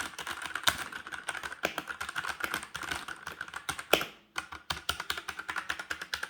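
Redragon K628 Pollux mechanical keyboard with red switches typed on rapidly: a fast, uneven run of key clacks, with a brief pause a little past four seconds in.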